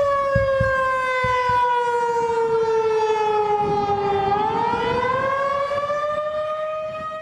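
Civil defence air-raid siren wailing: its pitch slowly falls for about four seconds, then rises back up, fading near the end. A few low thumps sound in the first second and a half.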